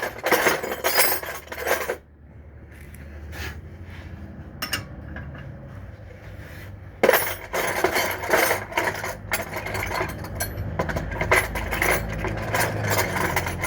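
Metal hand tools clinking and clattering as they are rummaged through and handled, in two spells of dense rattling with a quieter stretch of scattered clinks between.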